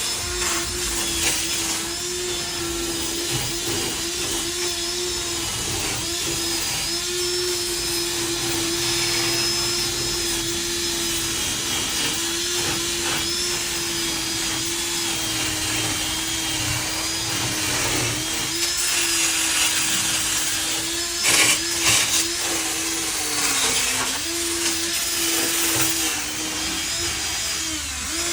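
Handheld electric power tool running steadily against the car's underbody metal, its motor pitch dipping briefly under load several times, with a couple of louder scraping moments about three quarters of the way through.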